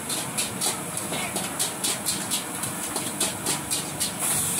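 Metal spatula scraping and knocking against a hot wok about four times a second, over a steady hiss of the gas burner and heating oil. The strokes stop about four seconds in and the hiss gets louder.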